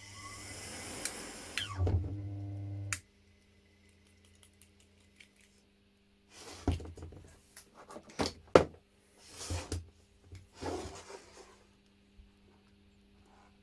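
Washing machine motor running with a steady electric hum and whir that cuts off suddenly about three seconds in. Then a few seconds of scattered clicks and knocks from handling.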